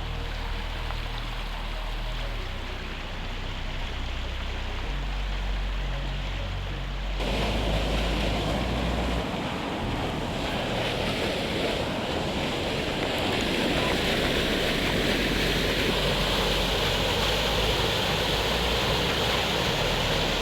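Steady rushing of a river waterfall in strong spring flow, with some wind on the microphone; the rush jumps suddenly louder and fuller about seven seconds in. A low bass line of background music sounds under the first part.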